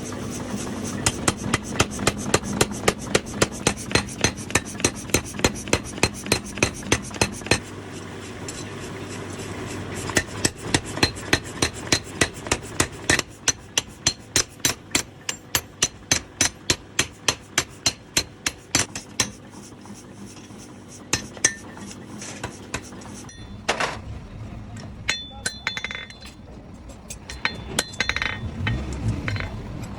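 Hammer strikes on metal in steady runs of about three blows a second, with a pause between runs. Near the end the strikes give way to scattered knocks and clinks.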